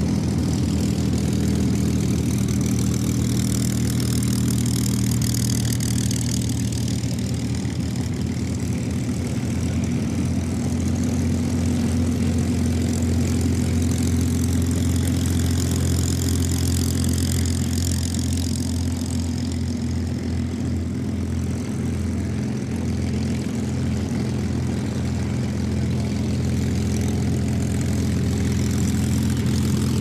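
Packard Merlin V-12 engines of P-51 Mustang fighters running at taxi idle, propellers turning, as the aircraft taxi past one after another. The engine note is steady and low.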